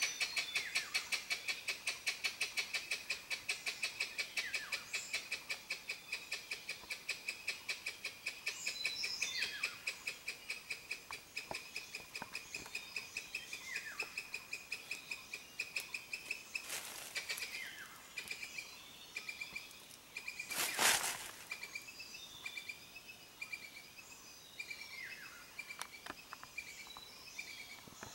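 Forest insect chirping in a steady rhythm, about four or five pulses a second, high-pitched, growing fainter after about 21 seconds. A few short falling whistles come over it from birds, and there is one short, loud burst of noise about 21 seconds in.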